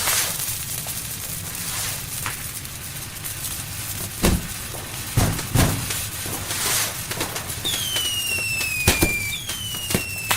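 Fireworks going off: steady crackling with sharp bangs, a few of them loud near the middle, and whistling rockets whose whistles fall in pitch, twice near the end.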